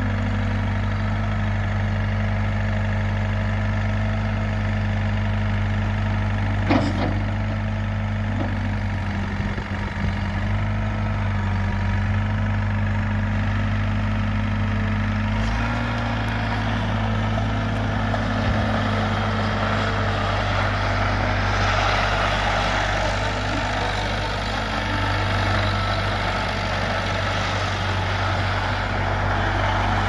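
New Holland L783 skid steer engine running steadily, with one sharp click about seven seconds in and a change in the engine note about halfway through. Over the last third a gritty crunch joins the engine as the tyres move and turn on gravel.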